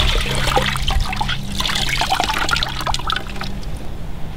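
Water trickling and splashing into a plastic bucket as a soaked sponge is squeezed out by hand. The splashing thins out and fades near the end.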